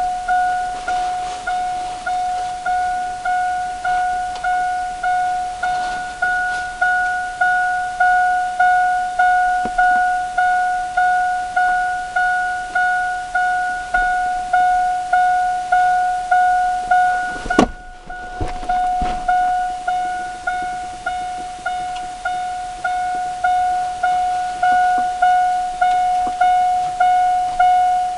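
Vehicle warning chime: one bell-like ding repeating evenly, about every two-thirds of a second. About two-thirds of the way through, a single knock briefly breaks the chiming.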